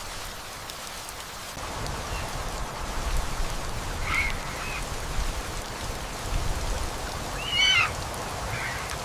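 Steady rain with short pitched animal calls: one brief call about four seconds in and a louder, quick run of calls near the end.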